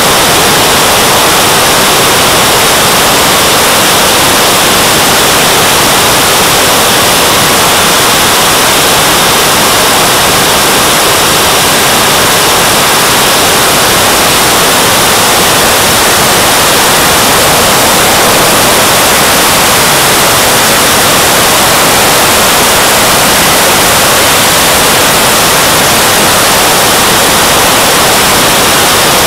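JetCat turbine of a Boomerang Elan model jet running in flight, mixed with rushing air, heard from on board right beside the engine as a loud, steady hiss that does not change.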